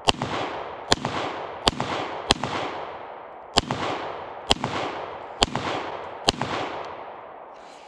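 Eight shots from a Ruger 57 5.7x28mm pistol at an uneven pace of about one a second, with a longer pause after the fourth, each followed by a long fading echo. The last shot is the final round of the magazine, and the pistol cycles it without jamming.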